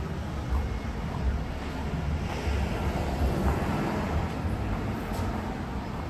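Street traffic on the road alongside: a steady low rumble of cars, swelling briefly about halfway through as a vehicle goes by.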